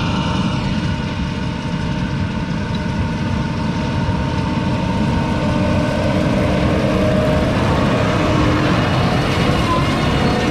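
Case IH Puma 200 CVX tractor's 6.7-litre six-cylinder diesel engine running steadily.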